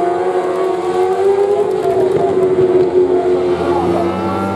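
Several litre-class racing superbike engines at high revs at once, their pitches drifting up and down as the bikes ride the circuit.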